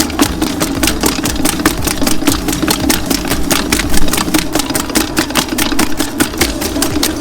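Electric mixer kneading sourdough baguette dough: a steady motor hum with a rapid, regular clicking of about seven a second.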